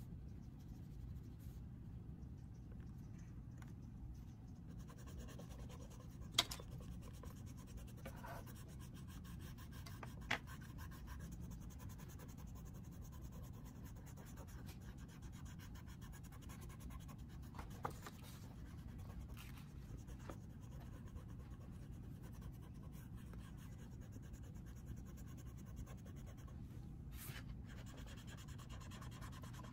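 Faint scratching of an oil pastel stick, then a cotton swab, rubbing over a pastel-covered paper sketch, with a low steady hum underneath. A few sharp clicks stand out.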